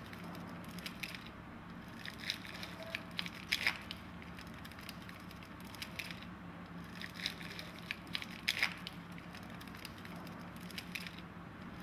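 Plastic wrapper and paper layers of a cannula dressing pack crinkling and rustling as they are peeled open and unfolded by hand, in scattered faint crackles.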